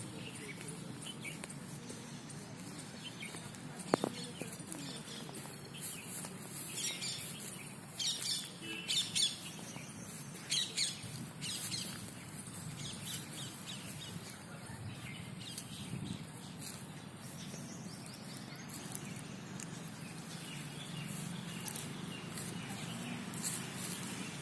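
Birds chirping: bursts of short high-pitched calls, busiest between about six and twelve seconds in, over steady outdoor background noise. A single sharp knock about four seconds in.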